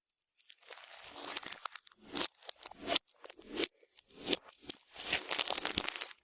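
Clear slime being squished and stretched by hand: sticky crackling and clicking in irregular bursts, with the longest and loudest burst near the end.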